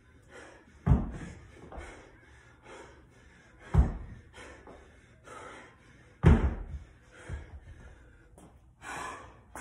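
A 50-pound hex dumbbell thudding down on a rubber mat three times, about two and a half to three seconds apart, as it is lowered between snatch reps, then a lighter knock. Hard, rapid breathing from the athlete's exertion between the thuds.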